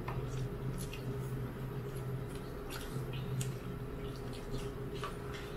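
Close-up chewing with scattered small wet mouth clicks from someone eating raw toro tuna, over a steady low hum.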